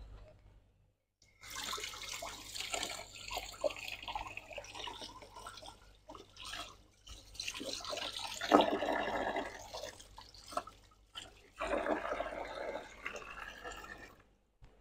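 Water running from a pipe and splashing onto an aluminium motorcycle footrest bracket into a tub, rinsing the part after its zincate dip in the chrome-plating process. The flow starts about a second and a half in, then stops and starts a few times.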